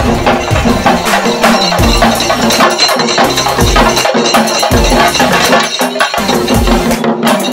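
Chenda drum ensemble played with sticks: fast, loud, continuous drumming, with a deeper beat landing about once a second.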